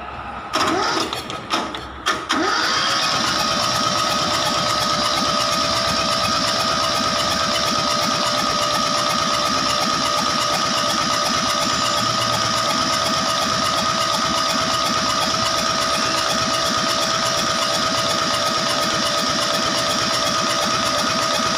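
Kubota D950 three-cylinder diesel engine: a couple of short bursts in the first two seconds, then the engine spins up and runs at one steady speed with an even whine, cutting off suddenly at the end.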